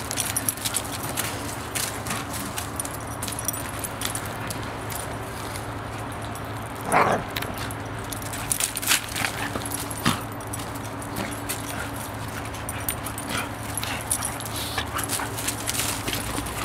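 A wolf dog and a puppy at play, with scuffling and scattered small clicks on gravel. There is one short, loud yelp about seven seconds in and a few fainter whimpers and yips after it.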